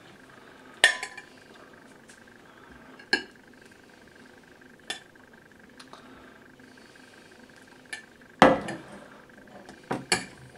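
Clinks and knocks of a plate and serving utensils while boiled potatoes are served onto a plate: about six separate strikes a second or two apart, the loudest about eight and a half seconds in and a quick double one near the end.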